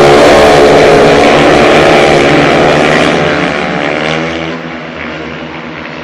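Several speedway motorcycles, each with a 500 cc single-cylinder methanol engine, racing round the track at full throttle. Their loud engine note dies away from about three seconds in.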